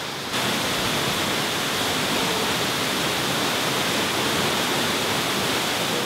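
Waterfall pouring into a rock pool: a steady, full rush of falling water that gets louder a moment in and then holds.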